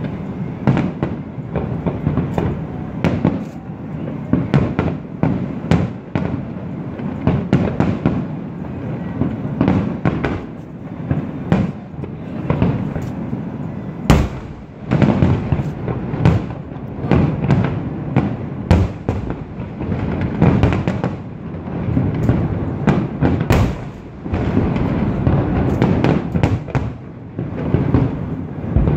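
Aerial fireworks bursting in a dense, continuous barrage: rapid overlapping booms and crackles with a rolling low rumble between them. A few sharper, louder reports stand out, one about halfway through and another a little later.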